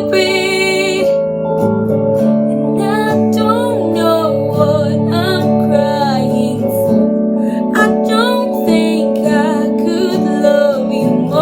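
Female voice singing held, wavering notes over guitar accompaniment.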